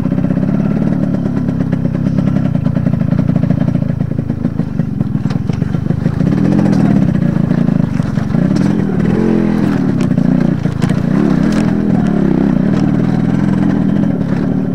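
Yamaha RX100's two-stroke single-cylinder engine running at low speed on a rough track. The engine note rises and falls with the throttle from about six seconds in, with scattered sharp clacks.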